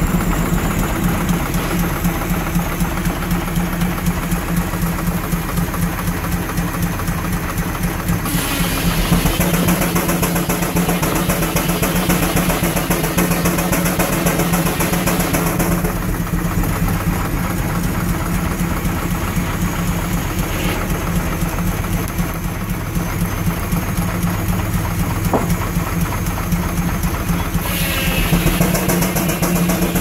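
Frick 8x10 steam traction engine running steadily while driving a sawmill, with rapid, even exhaust beats and mechanical clatter. A louder hiss joins it twice for several seconds.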